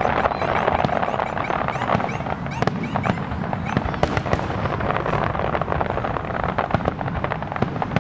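Aerial fireworks display: a dense, continuous crackle of many small pops from crackling-star shells, with louder bangs throughout over a low rumble.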